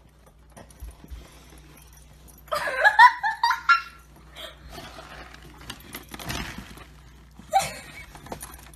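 A person laughing in a loud burst about two and a half seconds in, with a short second burst near the end. In between there is faint rustling and clicking from a dog rummaging head-first in a stainless steel kitchen trash can.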